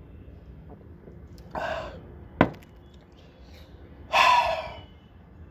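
A man exhales hard twice, harshly, after a drink of whisky with soda: once about a second and a half in and again, longer and louder, about four seconds in. Between the two a glass knocks sharply once as it is set down on the table.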